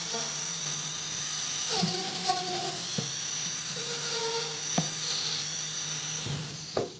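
Small handheld electric rotary tool running steadily against metal, a constant hum under a high hiss, with a few clicks and shifting tones as it bears on the work; it cuts off abruptly near the end.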